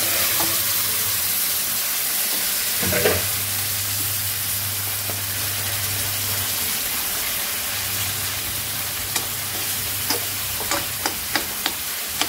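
Raw chicken pieces sizzling in hot oil in a kadai with onion and green chilli paste, being stirred with a spatula: a steady frying hiss, with a knock about three seconds in and several sharp clicks of the spatula against the pan near the end.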